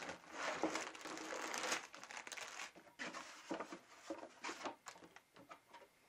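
Plastic parts bags of Lego pieces crinkling as they are tipped out of the cardboard set box: a dense rustle for the first two or three seconds, then shorter crinkles and clicks as the bags are handled.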